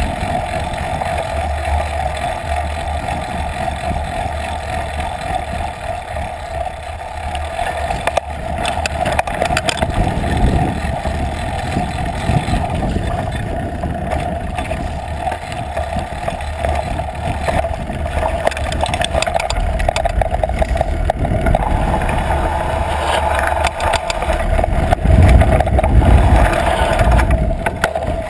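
Trek Fuel EX8 mountain bike rolling fast down dirt singletrack, picked up by a camera mounted on the seat post: the knobby rear tyre on dirt and the bike rattling over bumps, under a steady hum. The rumble and rattling get loudest over rough ground near the end.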